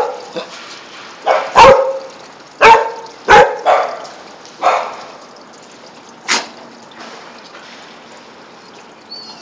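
A dog barking in play: about six barks roughly a second apart, the last around six seconds in.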